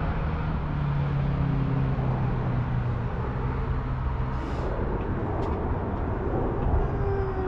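Steady rush of road traffic, with a vehicle engine humming low for the first four or so seconds and then fading out.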